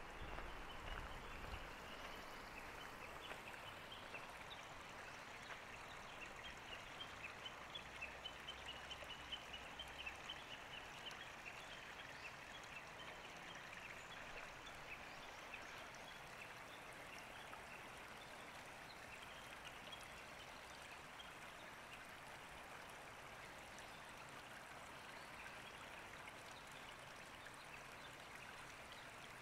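Faint running water, a small stream trickling steadily.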